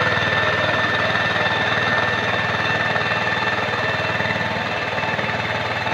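Two-wheel walking tractor (power tiller) engine running steadily under load with a rapid, even chugging beat as it drags a leveling board through the flooded paddy, growing slightly fainter as it pulls away.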